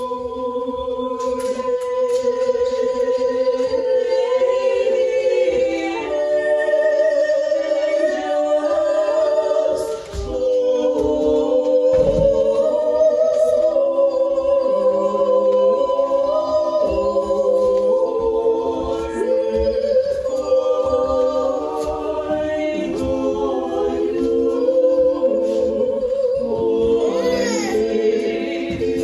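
Small mixed choir singing Orthodox liturgical chant a cappella, several voice parts holding sustained notes in harmony, with a short break between phrases about ten seconds in.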